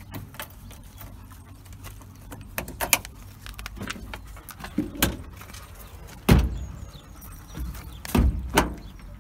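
Metal dog-lead clips jangling and clicking as leads and a retractable lead are handled, with several sharp knocks and thumps; the loudest thump comes about six seconds in and two more near the end.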